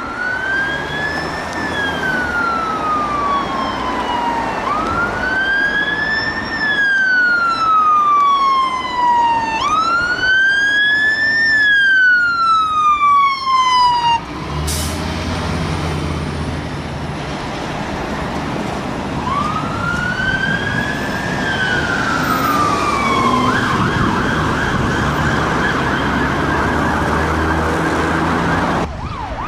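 UK fire engine sirens. A wail rises quickly and falls slowly, repeating about every five seconds, with a faster sweeping tone over it for a while. After a break, an engine runs underneath another wail that switches to a rapid yelp near the end.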